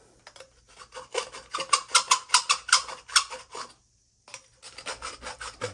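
Abrasive cloth scraped back and forth on the end of a copper pipe, cleaning it bright before fitting, in quick strokes of about four or five a second. The strokes stop briefly near the middle and then start again.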